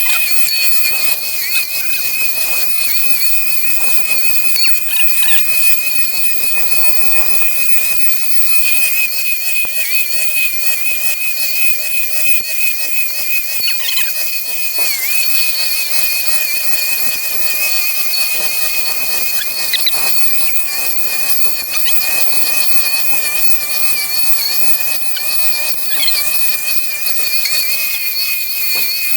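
Milwaukee M18 Fuel cordless strimmer with a metal brush cutter blade, its electric motor running at full speed with a steady high whine. The pitch wavers and dips briefly as the blade cuts through tall grass and reeds, with short ticks from the stalks it hits.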